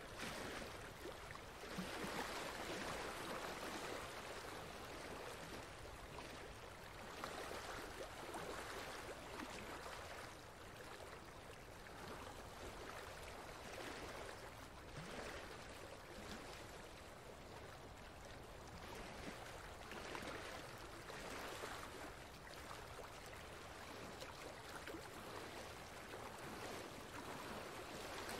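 Flowing water like a stream: a steady rushing hiss that swells and eases every few seconds. It is used as a masking bed for subliminal affirmations.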